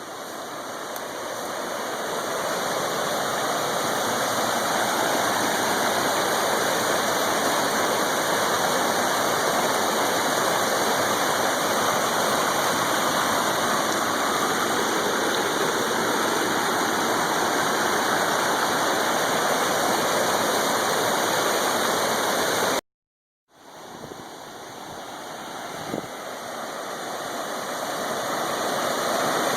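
A small waterfall rushing steadily. The sound swells up at first, breaks off for a moment about two-thirds through, and swells back in.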